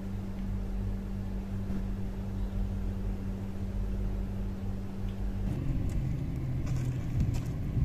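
A steady low hum with one constant tone. About five and a half seconds in it gives way to a rough low rumble of wind on the microphone, with footsteps and a few light clinks.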